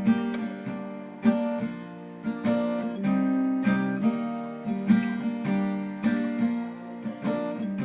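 Solo guitar playing a slow, sparse chord figure between sung lines of a song, one struck chord about every second, each ringing out before the next.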